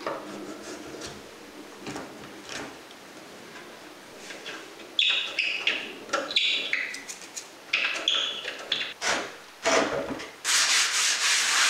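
Screwdriver backing heat-loosened wood screws out of a timber table base. It starts as quiet scraping, then turns to scratchy squeaks as the screws turn in the wood, and ends with a louder rubbing sound about a second long.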